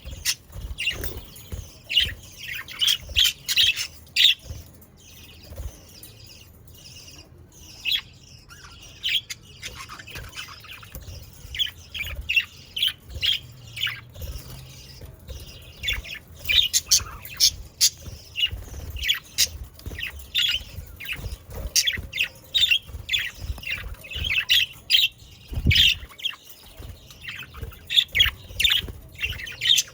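A flock of budgerigars chattering, with many short chirps and squawks overlapping. The calls thin out for a few seconds about five seconds in, then pick up again densely.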